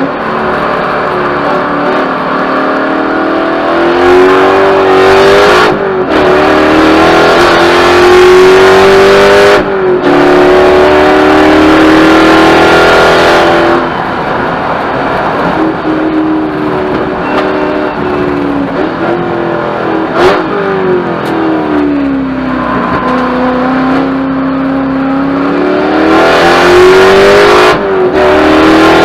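Spec Corvette's V8 engine at race pace, heard from inside the car: it revs up under acceleration with brief breaks and pitch drops at the upshifts, about six seconds in and again near ten seconds. In the middle it eases off, falling lower and a little quieter, then climbs again before another shift near the end.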